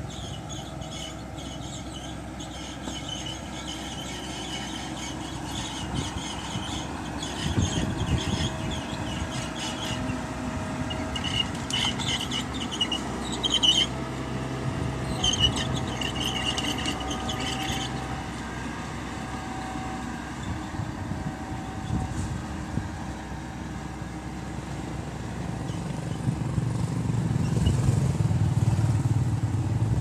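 Mitsubishi BD2G crawler bulldozer's diesel engine running under load as it pushes dirt, getting louder about four seconds before the end. High squealing comes and goes through the middle stretch, with a few sharp clanks.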